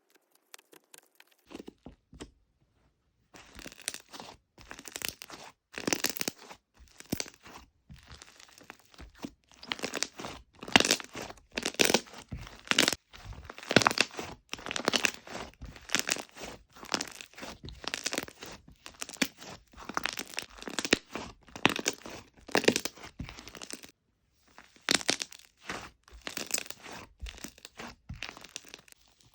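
Fluffy "Dalgona Cocoa" slime being squeezed, stretched and pulled apart by hand, giving a run of irregular sharp tearing and crunching sounds, about one or two a second. The sounds start about three seconds in and pause briefly near the end.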